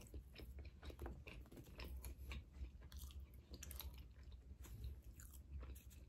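A person chewing a soft, moist peanut butter cookie close to the microphone: faint, irregular little clicks and smacks of the mouth, several a second.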